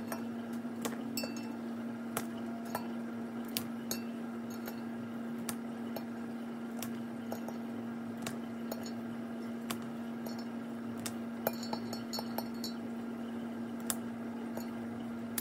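Pieces of ceramic filter media clinking against each other and the plastic mesh as they are dropped one by one into a DIY chaeto basket, in irregular sharp clicks about one or two a second, over a steady low hum.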